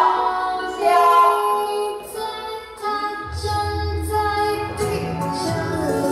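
Chinese pop song with a female singer, the dance track for the routine; a deep bass line comes in about three seconds in.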